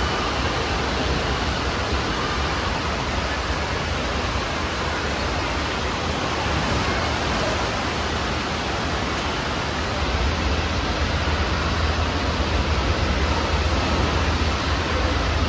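Steady rush of falling and splashing water in an indoor water park hall, an even noise that gets a little louder about two-thirds of the way through.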